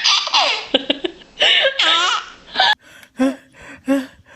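Baby laughing hard in high, squealing belly laughs. A little under three seconds in, the sound cuts to shorter, separate bursts of laughter.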